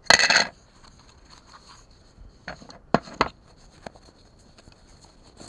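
Small unboxed accessories and their packaging being handled and taken out of a box. There is a loud rustle right at the start, then a few short knocks and clicks about two and a half to three seconds in.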